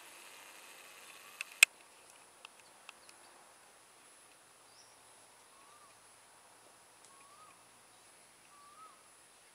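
A sharp click about one and a half seconds in, followed by a few small ticks. From about halfway, a bird gives a faint, short rising-and-falling call roughly once a second over a thin steady high tone.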